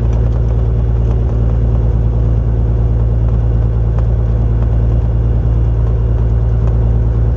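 Single-engine Cessna's piston engine and propeller running steadily, an even drone heard from inside the cabin.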